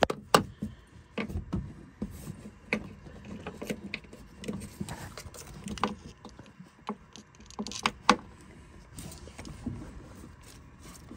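Irregular light clicks, taps and rubbing of hands and tools working on a marine engine, refitting the knock sensor and its wiring connector.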